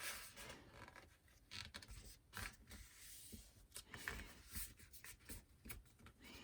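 Faint rustling and scraping of a sheet of origami paper being slid into place and folded by hand, with scattered small scratchy ticks.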